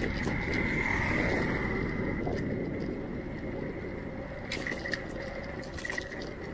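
A motor scooter passes close by, its engine sound fading away over the first couple of seconds and leaving a steady, quieter street background.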